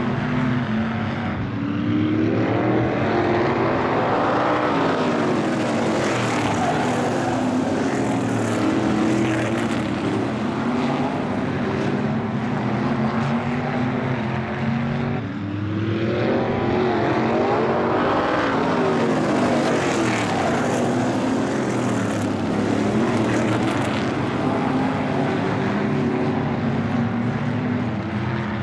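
A pack of 360 sprint cars' V8 engines running at race speed, their blended engine note swelling and fading twice as the cars lap the oval.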